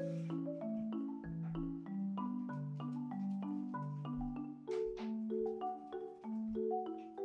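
Background music: a light tune of short struck notes over a lower held bass line.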